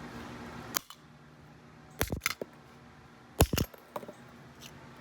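Sharp metal impacts as a broken door lock is smashed on concrete: one strike about a second in, a quick double strike near two seconds, the loudest double strike at about three and a half seconds, and a lighter knock just after.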